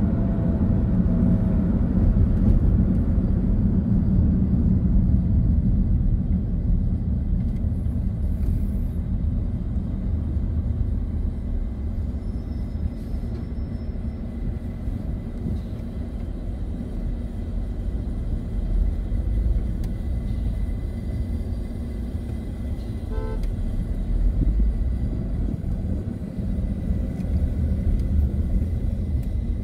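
Steady engine and tyre rumble of a car in motion, heard from inside the cabin, with a brief beep about two-thirds of the way through.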